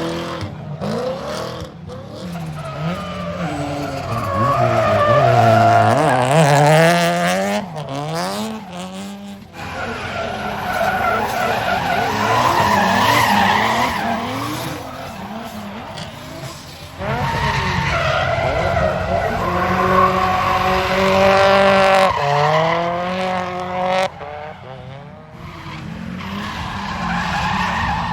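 Drift cars' engines revving up and down over tyres squealing through long slides, in several separate passes with abrupt changes between them.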